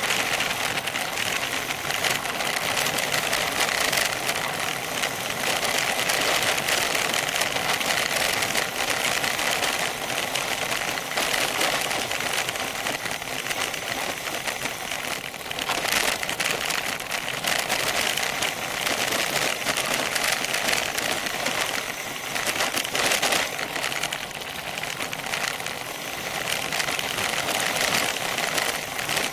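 Bicycle descending a gravel road: the tyres crunch over loose stones and the bike rattles with a steady, dense chatter of small clicks.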